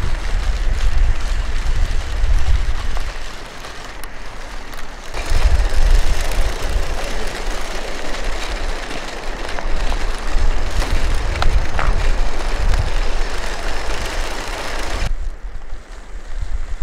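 Wind buffeting the microphone, over the rattle and crunch of a remote-controlled, electric-motored LEGO Technic tracked tractor's plastic tracks running over loose stones. The sound changes abruptly at about 5 seconds and again near the end.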